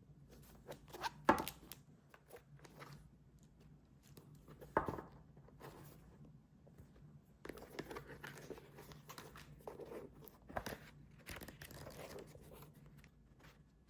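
Small handling noises: rustling, crinkling and tearing with a few sharp clicks and taps, over a faint steady hum.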